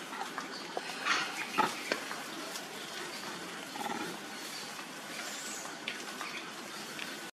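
A macaque moving in leafy branches: leaves and twigs rustling, with a few short sharp snaps and brief animal sounds, over a steady background hiss.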